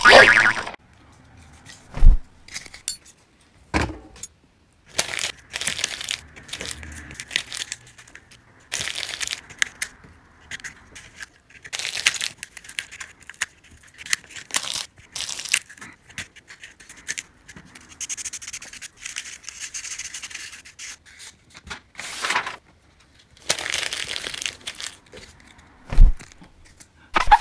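Cardboard being handled, cut and scraped in short, noisy bursts, with a few sharp thumps, the loudest about two seconds in and near the end.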